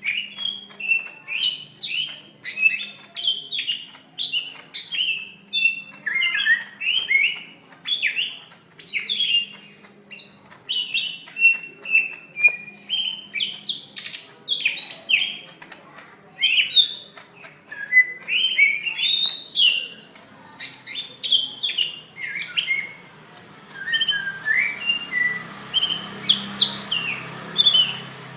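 Cucak ijo (green leafbird) singing its fighting song: a rapid, unbroken run of sharp chirps and warbled phrases. Near the end a hiss rises and the song grows softer.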